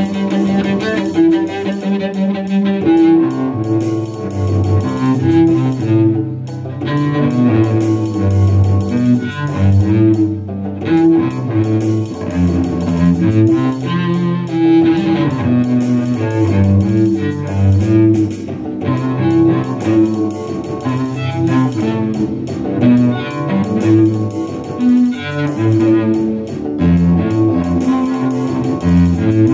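Cello bowed in a freestyle improvisation over a produced beat: a repeated guitar pattern, busy hi-hats, and snare and bass keeping the rhythm.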